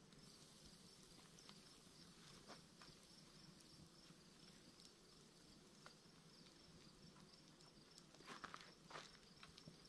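Quiet outdoor background of insects chirping in a steady, evenly pulsing rhythm, with a few faint clicks and a short run of louder scraping or rustling strokes near the end.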